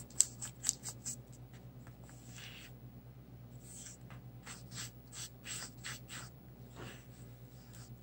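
Paintbrush swept across a paper journal page in quick runs of short scratchy strokes, with pauses between the runs.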